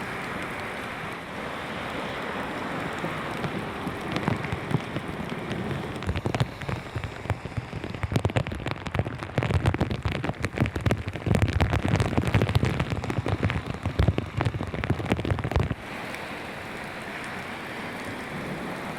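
Heavy rain falling, with a steady hiss; from about four seconds in, large drops hit hard and close by with many sharp, irregular impacts, which stop abruptly near the end and leave the steady rain.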